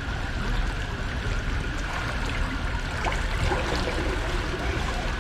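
Steady rush and trickle of running water around a ride boat, over a low rumble.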